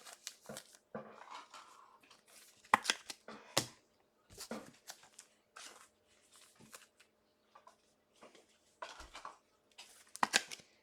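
Trading cards being handled and flipped through by hand: irregular short rustles and light clicks, a few sharper taps among them.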